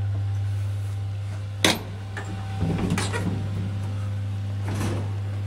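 Old traction elevator's doors opening: a sharp clunk about one and a half seconds in, then rattling and knocking as the doors are worked open, over a steady low hum.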